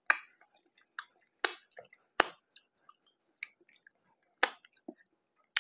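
Close-up eating sounds: a mouth chewing a ground pork mac and cheese burger and sucking sauce off fingers, with a run of short wet smacks and clicks at irregular intervals.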